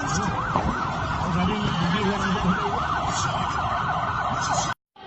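Emergency vehicle siren yelping, its pitch sweeping up and down about three times a second, over steady background noise; it cuts off abruptly near the end.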